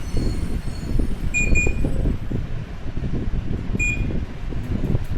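Samsung split air conditioner indoor unit running on test with a newly fitted indoor fan motor: a steady low rumble of the fan turning. Short electronic beeps come twice in quick succession about a second and a half in and once more about four seconds in.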